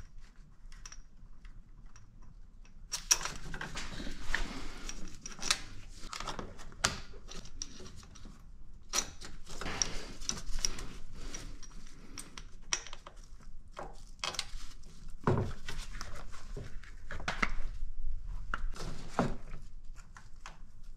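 Irregular metallic clinks, knocks and scraping of a power steering pump and hand tools being worked into place by hand in a car's engine bay, with rustling in between.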